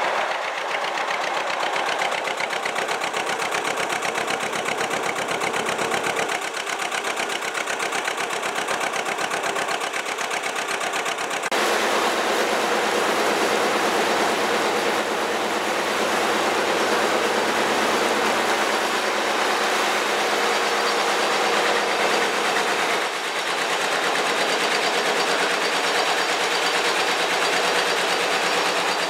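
Narrowboat diesel engine running with a steady, rapid beat. About eleven seconds in the sound changes to a fuller, heavier beat as the boats run through a brick canal tunnel.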